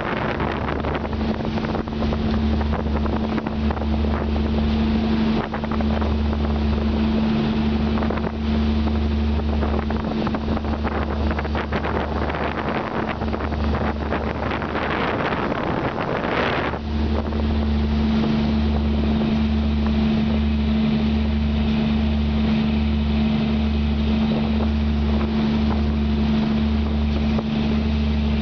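A boat's engine drones steadily under way, with wind on the microphone and rushing water. In the middle a stronger rush of wind and water builds up, then cuts off suddenly.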